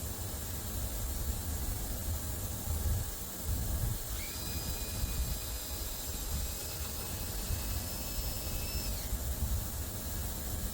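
A small motor whines at a steady high pitch for about five seconds, spinning up about four seconds in and winding down near the end, over a steady low rumbling hiss.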